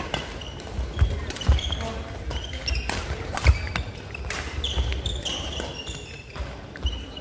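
Badminton doubles rally: sharp racket strikes on the shuttlecock, sneaker squeaks and footfalls on a wooden court floor.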